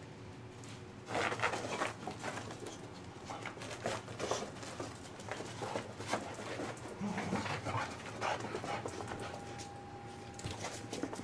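A Boxer and a Pomeranian puppy play-fighting over a small toy: low play growls and scuffling on carpet in irregular bursts, starting about a second in.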